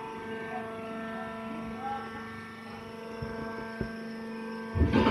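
Hydraulic coconut-fibre baler's electric motor and hydraulic pump humming steadily while pressing a bale, with a sudden loud noisy burst near the end.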